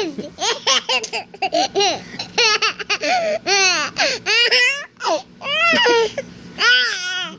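Young child laughing in many short, high-pitched bursts.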